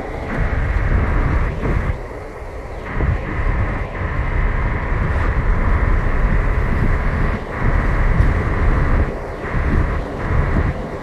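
Steady rumbling road and engine noise of a moving vehicle, with wind buffeting the microphone and making the level rise and fall.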